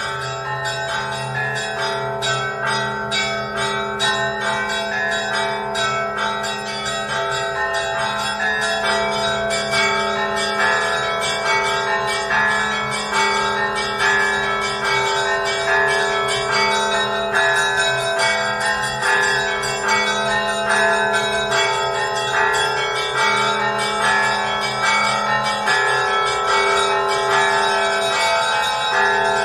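Church bells ringing: many bells struck in a rapid, continuous peal over deeper bells that sound steadily underneath.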